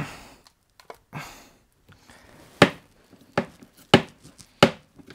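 Two short scraping rustles, then four sharp knocks a little under a second apart, from working sticky goo out of a paper shredder by hand.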